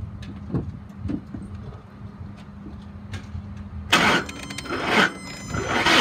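A few faint knocks, then about four seconds in the starter of a 2008 Ford Expedition's 5.4-liter V8 begins cranking in slow, laboured surges about once a second, without the engine catching. It turns over very heavily and won't start, which the owner takes as a sign of a bad motor.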